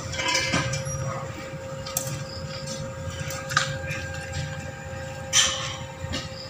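Steel pieces knocking and clanking a few times over a steady machine hum. The loudest knock comes about five seconds in.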